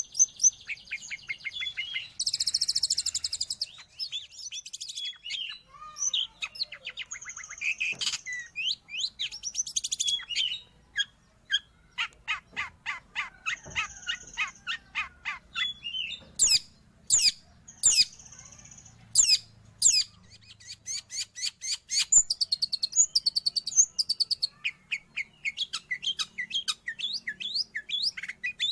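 Long-tailed shrike (cendet) singing a long, varied song: fast trills of repeated notes, quick high sweeps, a few short held whistles and harsh scratchy chatter, broken by brief pauses.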